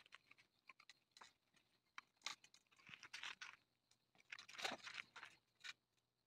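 Two dogs scuffling on a raised canvas dog cot: faint, irregular scrapes, rustles and crunches of paws and bodies on the fabric, with a louder burst of scraping about two-thirds of the way through.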